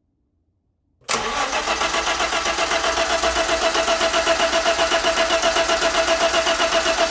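Car engine being cranked by its starter motor without catching: a steady starter whine with rapid, even compression pulses, starting about a second in and running for about six seconds without the engine firing. This is the cranks-but-no-start fault.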